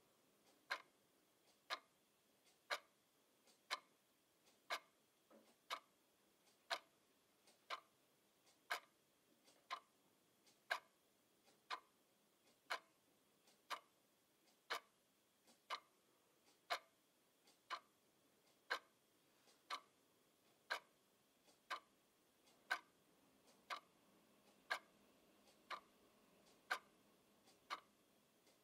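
Quartz twin-bell alarm clock ticking, one sharp, even tick about every second.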